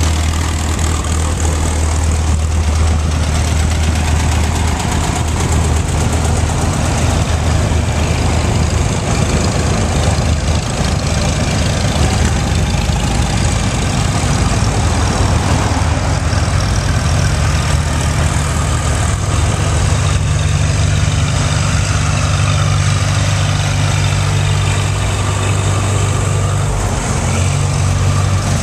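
Antique farm tractors driving past one after another, their engines running steadily, with the engine note changing as each tractor comes close.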